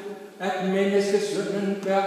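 A man chanting liturgical text on a steady reciting tone, holding long, even notes, with a brief pause just after the start.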